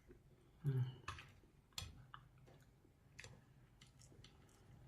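Faint, scattered clicks and taps of someone eating at a table, with a short low hum of voice just under a second in.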